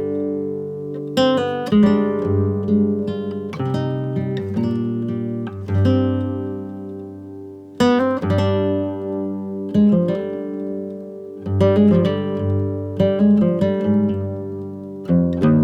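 Background music: acoustic guitar strummed in chords, each strum ringing out before the next every second or two.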